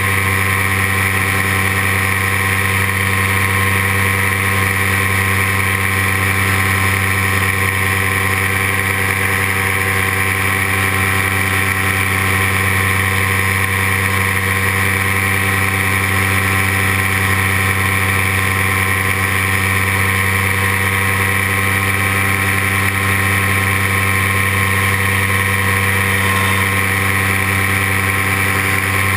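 Paramotor engine and propeller running at a steady, constant throttle in cruising flight, a loud even drone that does not change.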